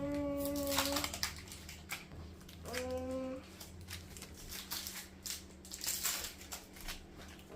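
Crinkling and crackling of a Pokémon card pack's wrapper as it is handled and torn open, in many small sharp crackles. Two brief held pitched tones come through, one at the start and one about three seconds in.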